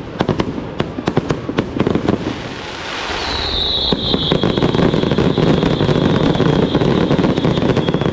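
Aerial fireworks display: a rapid run of sharp bangs and cracks, then from about three seconds in a long high whistle that sinks slightly in pitch over a dense crackling rumble.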